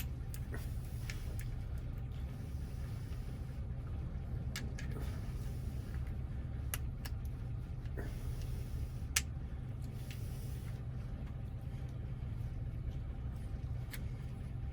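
A few sparse, sharp clicks from a freshly cut key being worked in a Toyota door lock cylinder, over a steady low hum.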